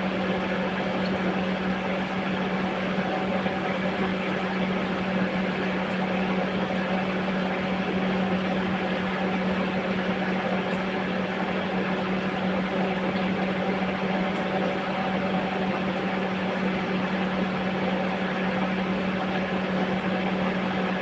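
A steady machine hum, a constant low drone over an even rushing noise, without change.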